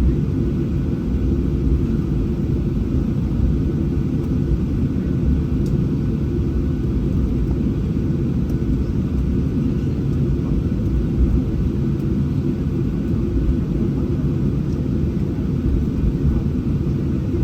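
Steady low rumble inside the cabin of a Boeing 737-800, its CFM56-7B engines running at takeoff power.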